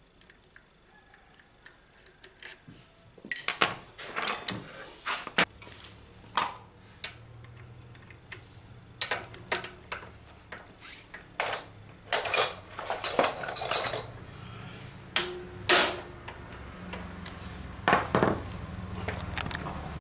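Metal hand tools and bolts clinking and knocking against a scooter's engine casing in sharp, irregular clanks. A low steady hum comes in about five seconds in.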